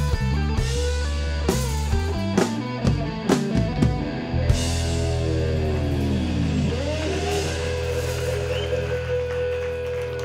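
Rock band with electric guitar and drums playing: drum strikes through the first few seconds, then a long held chord from about halfway, with guitar notes sliding down in pitch.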